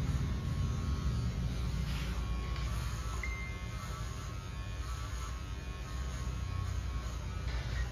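Electric hair clipper running with a steady low buzz.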